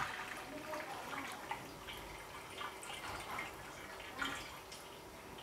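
Herb-and-fish cooking water poured from a pot into a wide metal wok, faintly splashing and trickling, then dripping as the stream thins.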